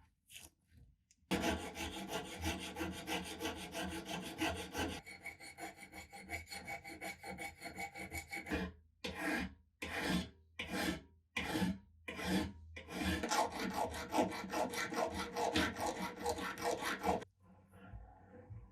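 Hand abrasion work on saber metal: rapid back-and-forth rasping strokes, slowing to a handful of separate strokes midway, then fast again before stopping near the end.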